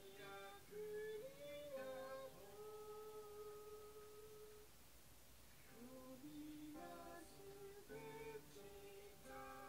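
Faint music: a slow melody of long held notes that glide between pitches.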